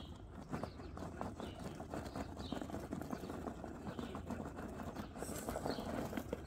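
Absima Sherpa RC crawler's tyres and chassis clattering and scraping over concrete grass-paver blocks as it crawls slowly: a dense, irregular run of small knocks and scrapes.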